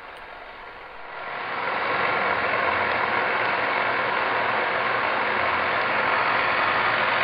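Clark 1440 engine lathe running under power, its spindle and headstock gears turning with a steady mechanical whir that builds up about a second in.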